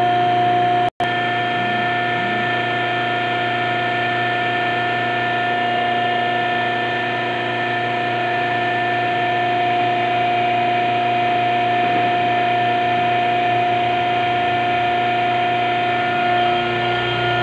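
Hydraulic power unit's electric motor and pump running steadily during a hydraulic cylinder test, a constant hum with a pitched whine. The sound cuts out for an instant about a second in, then carries on unchanged.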